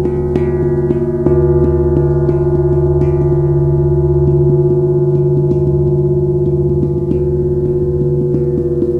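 Three suspended oval iron plates, one large and two smaller, 3/16" thick, struck over and over like gongs. Many light, quick strikes and a few harder ones near the start keep their tones ringing together in a steady, layered drone.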